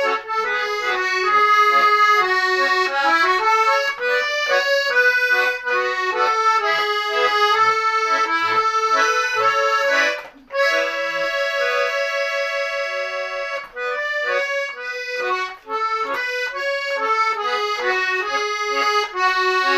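Garmon, a Russian button accordion in A, playing a solo melody with chordal accompaniment. About halfway through it breaks off briefly, then holds one chord for about three seconds before the tune goes on.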